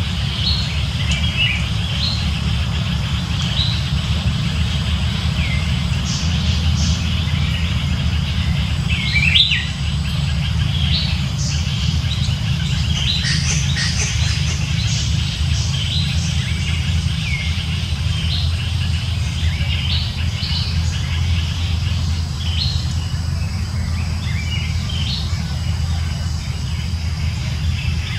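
Small birds chirping in short, repeated calls over a steady low rumble, with one sharp knock about a third of the way through.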